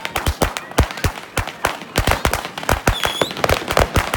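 Fireworks and firecrackers going off all around: a dense, irregular run of sharp bangs and cracks, several a second, with a brief high whistle about three seconds in.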